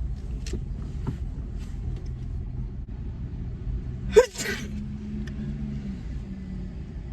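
A woman sneezes once, loudly, about four seconds in: a short voiced onset breaking into a sharp hissing burst. Under it, the low steady hum of a car engine idling.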